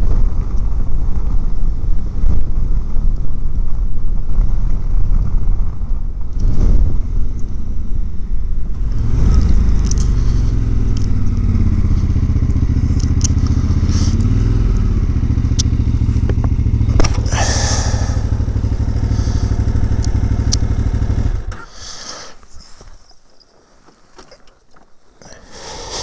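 Motorcycle riding at road speed: heavy wind rush on the microphone over the engine's low drone. About halfway through, the engine note rises and falls. About three-quarters of the way through, the sound drops suddenly to a much quieter rustle with a few clicks.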